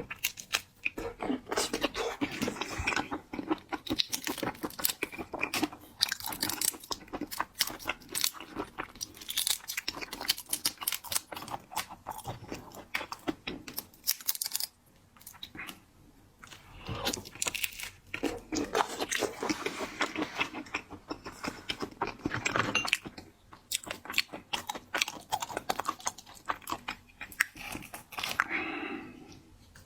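Close-miked chewing and crunching of seafood, with rapid sharp crackles and wet mouth sounds, pausing briefly about halfway through.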